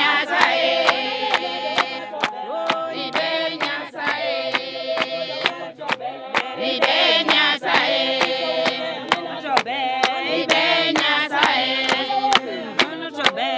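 A group of voices singing a repeating song in chorus, kept in time by steady handclaps about twice a second.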